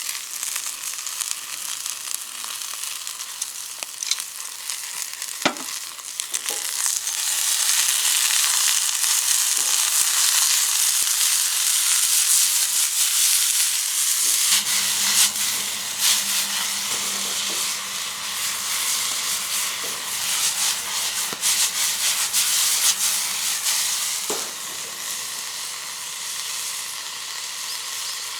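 Food sizzling and frying in a Uniflame camp wok over a campfire, growing louder about seven seconds in, with a few sharp clinks of a utensil against the wok.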